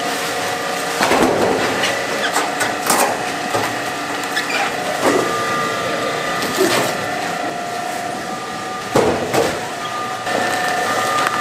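Food-processing line machinery running with a steady hum of several held tones, with a few sharp knocks and clatters as napa cabbages are handled on stainless steel tables.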